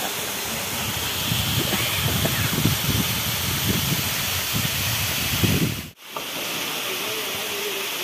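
Waterfall rushing steadily, a constant wash of falling water. The sound cuts out for an instant about six seconds in, then carries on as before.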